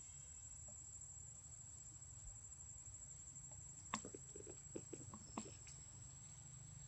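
Quiet background with a low hum and a steady high-pitched whine, broken by a handful of soft clicks and rustles between about four and five and a half seconds in.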